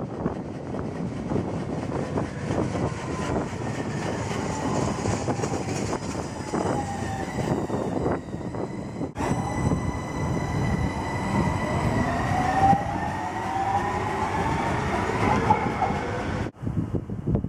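A driverless Copenhagen Metro electric train running on steel rails, passing close by: a rumble of wheels on track with a whine whose pitch slides, falling as it goes by and rising again later on.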